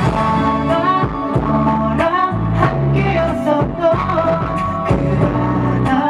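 K-pop song sung live by a male vocalist over a band backing track through the stage PA, with bass, chords and a steady drum beat of about two hits a second.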